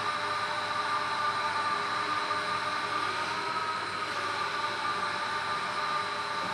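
Small tracked robot's electric drive running: a steady whine of several high tones over a hiss, the pitch shifting slightly about three and a half seconds in.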